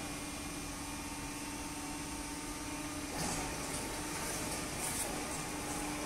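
Horizontal cardboard baler running: the steady hum of its hydraulic power unit and feed conveyor, with one constant tone. Short hisses come in a few times from about three seconds in.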